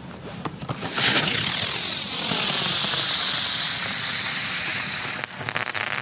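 Xplode Crackling Bird winged firework lifting off about a second in with a loud, steady rushing hiss that lasts about four seconds as it climbs. The hiss cuts off suddenly near the end and gives way to a rapid crackling as its crackling finale goes off.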